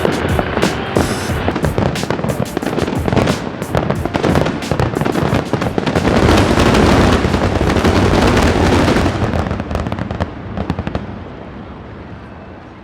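Fireworks display: a rapid run of bangs and crackling that builds to a dense barrage about six to nine seconds in, then thins out and fades near the end.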